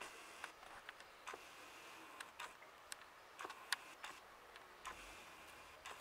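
Faint, irregular ticks and clicks over quiet outdoor background hiss, with one sharper click at the end.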